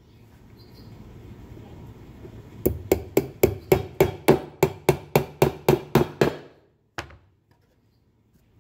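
Claw hammer driving a nail into a pine board: a quick run of sharp blows, about four a second, for some three and a half seconds, then one more knock.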